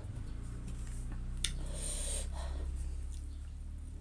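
Close-miked eating: chewing and breathing while eating spicy chicken and rice by hand, with a short hiss of breath about two seconds in and a sharp click shortly before it, over a low steady hum.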